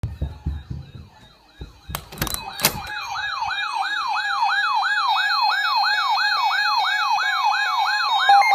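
Electronic siren in a fast yelp, sweeping up about three times a second, loudest from about three seconds in after two sharp clicks. Before the yelp, a fainter slow wail sits under low thumps.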